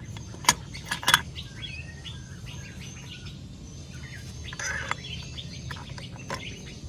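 A few sharp metallic clinks in the first second or so as scooter CVT variator parts are handled, then small birds chirping in the background.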